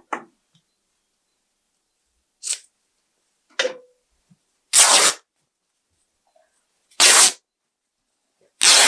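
Calico fabric rustling and flapping in short bursts as a loose piece is shaken out and handled, three louder swishes in the second half.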